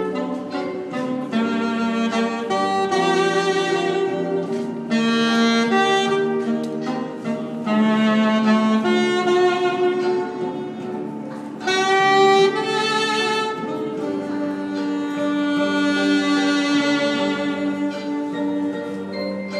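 Saxophone played live, a jazz melody of held notes that moves every second or so, with a quick climb to a loud high note about twelve seconds in.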